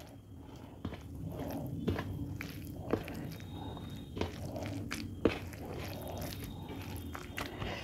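Close-miked eating sounds: chewing and the soft wet squish of rice being mixed by hand with mashed roasted eggplant, with light clicks every second or so.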